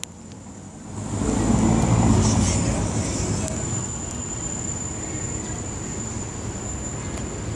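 Street traffic: a road vehicle passes close by, its low rumble swelling about a second in and fading out by about four seconds, over steady traffic noise.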